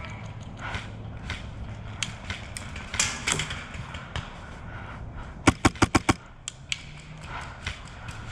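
Airsoft gun firing a short rapid burst of about six shots a little past halfway, with scattered single sharp clicks and snaps before it.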